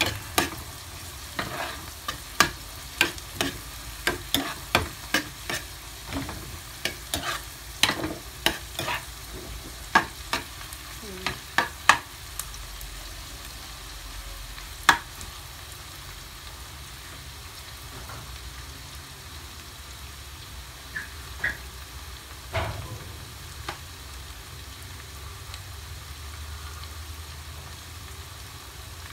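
Onion, garlic and chili frying in melted butter in a wok: a steady sizzle, with a metal spoon scraping and clinking against the pan as they are stirred, many strokes over the first dozen seconds and only a few after that.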